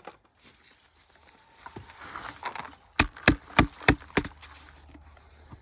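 Soft scraping, then five sharp knocks in quick, even succession, about three a second.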